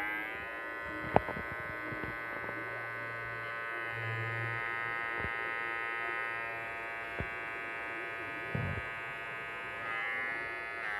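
WAER cordless rechargeable hair clipper running, a steady electric buzz that rises as the motor comes up to speed at the start. There is a sharp click about a second in.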